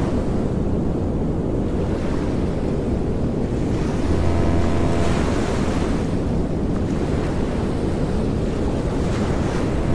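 Surf washing steadily on a beach, a continuous rushing noise with wind on the microphone. A low drone swells briefly about four seconds in.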